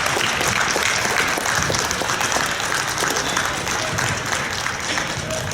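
Spectators clapping and cheering, easing off near the end.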